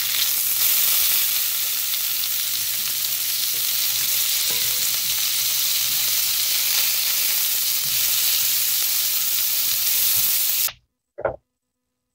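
Food sizzling steadily as it fries in a hot pan; the sizzle cuts off suddenly near the end.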